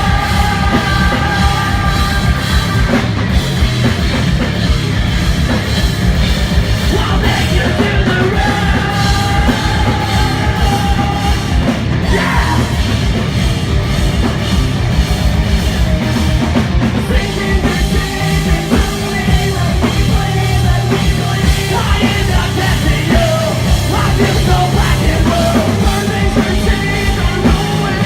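Live punk rock band playing loud, with a driving drum kit, distorted electric guitars and bass, and some yelled vocals.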